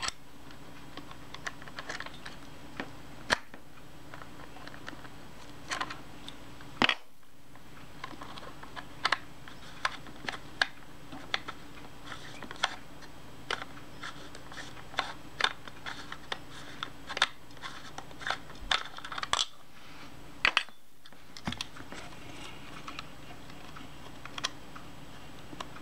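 Small metal clicks, taps and light scrapes of a flat steel tool working inside a folding camera's body, unscrewing the retaining ring that holds the shutter and lens assembly. The clicks come irregularly, one or two a second.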